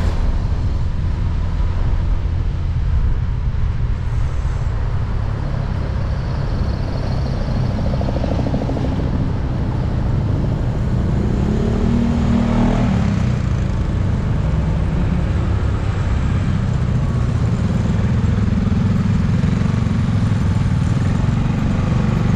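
Motorcycle engine running at low speed in slow, congested traffic, mixed with the steady hum of surrounding cars, trucks and motorbikes. Nearby engines get louder for a while about twelve seconds in and again near the end.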